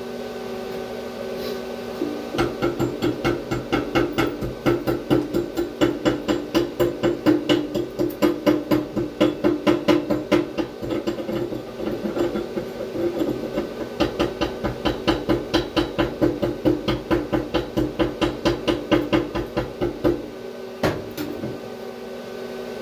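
A hand brush scrubbing slag off a fresh stick-weld bead in quick regular strokes, about three to four a second, over a steady machine hum. The strokes start about two seconds in and stop about twenty seconds in.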